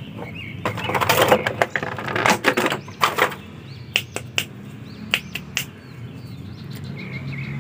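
Clear plastic packaging bag crinkling as a small plastic action figure is pulled out, then a few sharp clicks of the hard plastic figure being handled.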